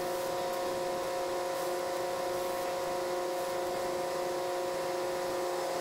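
Steady machine hum with several fixed tones over a light hiss, from the fuel station's air pump compressor running while the trailer tyre is being filled.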